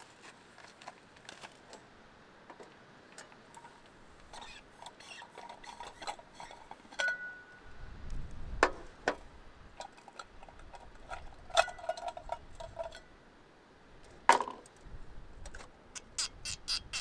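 Scattered clinks and knocks of camp cups, cookware and glassware being handled. Two of the clinks ring briefly, a few sharper knocks stand out, and there is a quick run of clicks near the end.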